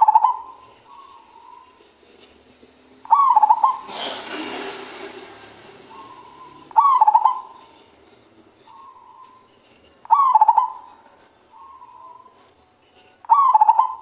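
Male zebra dove (perkutut) cooing, repeating its stuttering coo phrase five times, about every three and a half seconds. A brief hiss follows the second coo.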